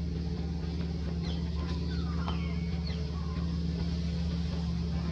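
A steady low hum of an idling motor-vehicle engine. Several short, high chirping calls come between about one and three and a half seconds in.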